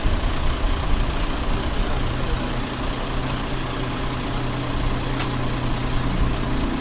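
Bugatti EB110 GT's quad-turbocharged 3.5-litre V12 running at low revs as the car moves slowly, a steady low engine drone that settles into an even hum about two seconds in.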